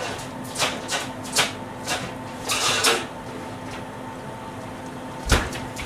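Kitchen handling noises: a few short clicks and rustles, a longer rustle a little before the middle, and a solid thump near the end, over a faint steady hum.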